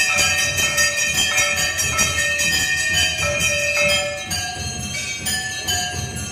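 Hand-rung brass temple bells clanging during an aarti, many ringing tones overlapping, over a steady rhythmic clatter of percussion. The ringing eases off a little about four seconds in.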